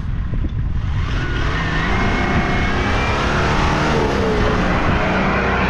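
Toyota Land Cruiser's engine revving up as the SUV accelerates through soft sand, its pitch rising and the sound growing louder from about a second in.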